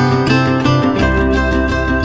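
Background music with quick repeated pitched notes; a deep bass comes in about a second in.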